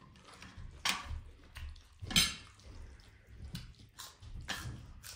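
Close-up eating sounds at a meal: a few sharp, wet mouth smacks and clicks about a second apart, the loudest about two seconds in.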